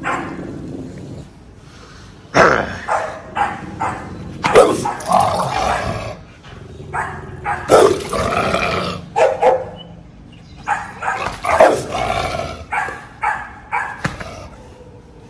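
A pit bull-type dog barking and growling fiercely in repeated bouts with short pauses between them, the sound of a dog behaving aggressively, as if wanting to attack.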